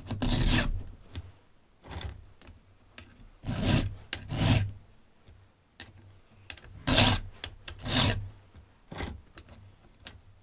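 Hand file rasping on a chainsaw chain clamped in a vise, filing down the depth gauges: a slow, irregular run of strokes, some in close pairs, with pauses between.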